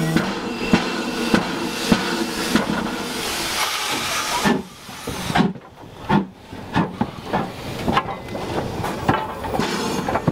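Steam tank locomotive working, with steam hiss and steady beats nearly two a second; about four and a half seconds in the hiss drops away, leaving scattered clicks and knocks.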